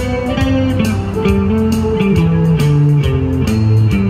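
Guitar music: plucked guitar notes over a low bass line that steps down and back up in pitch, with evenly spaced percussive ticks keeping a beat.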